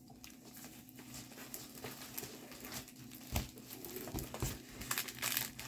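Plastic packaging of a diamond painting kit rustling and crinkling as it is handled and unpacked, with scattered light clicks and a couple of soft knocks, the loudest a little over three seconds in.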